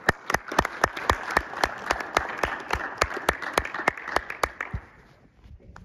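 Audience applauding, with one pair of hands clapping close by, about five sharp claps a second, over the general clapping. The applause dies away about five seconds in.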